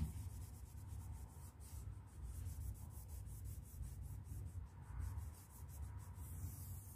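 Cloth rag scrubbing a painted wall in quick repeated back-and-forth strokes, to rub crayon marks off the paint.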